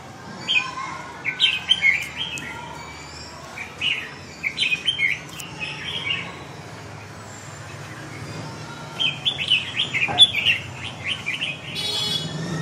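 Red-whiskered bulbul singing in three bouts of quick, chirpy phrases with short pauses between. A brief buzzy sound comes in right at the end.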